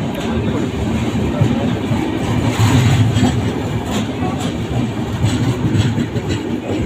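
A train moving along the platform: a steady low rumble of the locomotive and wagons with irregular sharp clicks of wheels over the rails.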